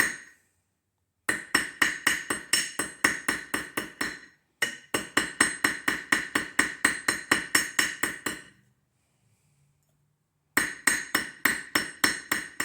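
Hammer striking a fine silver ring on the horn of an anvil in quick, ringing blows, about five a second. The blows come in three runs, with a short pause about four seconds in and a longer one of about two seconds just before the last run.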